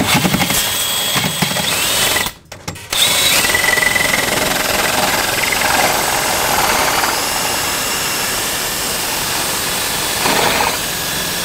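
Cordless drill with a hole saw boring through a wooden floor joist. It stops briefly about two seconds in, then runs steadily under load.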